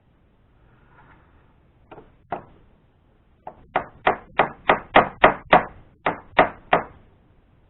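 Hammer blows: two single knocks about two seconds in, then a run of about a dozen sharp strikes at roughly three a second, driving a part in during a mini lathe repair.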